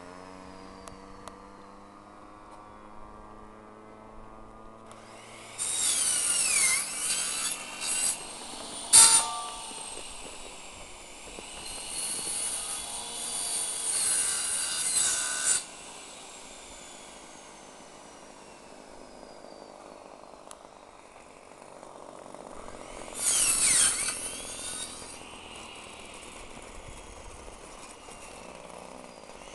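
DLE 20 single-cylinder two-stroke petrol engine of a radio-controlled model plane in flight, a buzzing drone. Its pitch sinks slowly at first as the plane flies off. It grows loud, with pitch swooping, in two long stretches as the plane passes close. There is one sharp knock about nine seconds in.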